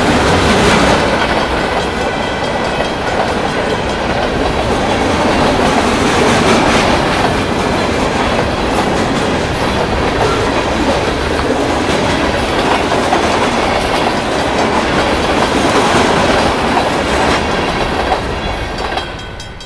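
CN freight train's cars rolling past, a steady rumble and clickety-clack of wheels over the rail joints, fading out near the end.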